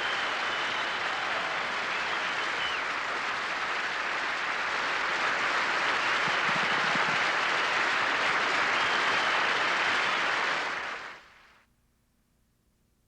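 Studio audience applauding steadily, swelling slightly midway, then fading out over about a second near the end.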